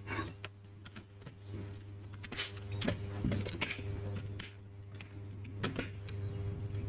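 Irregular clicks, light knocks and rattles of metal and plastic parts being handled and fitted as a car radio is put back together, over a steady low hum.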